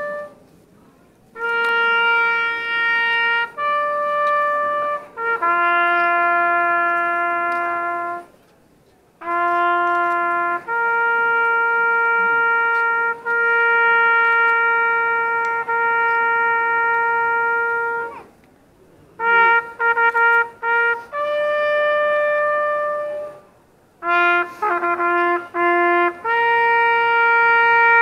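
Solo trumpet playing a slow melody: long held notes with short pauses between phrases, and quicker repeated notes in the second half.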